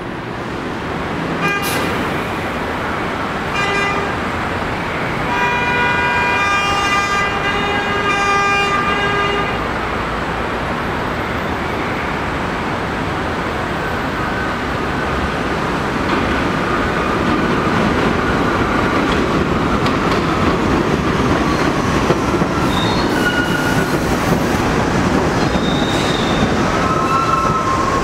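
Bombardier R62A subway train approaching an elevated station: a short horn blast, then a longer one of about four seconds, followed by the rumble of the train's wheels on the elevated track. The rumble grows louder as the train comes in, with squealing wheel tones starting near the end.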